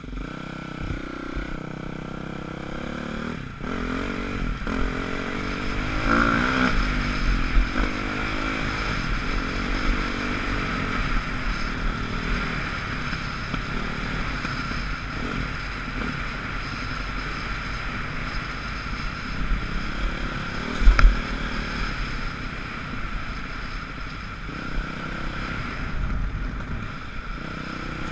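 Dirt bike engine revving up through the gears as it pulls away, then running steadily at speed along a dirt trail, with low wind rumble on the microphone. A short, heavy jolt stands out about three quarters of the way through.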